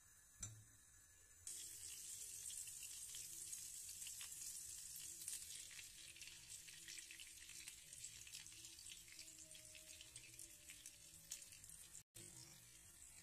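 Butter sizzling and crackling in a hot pan, after a short click; the sizzle starts suddenly about a second and a half in and slowly eases off.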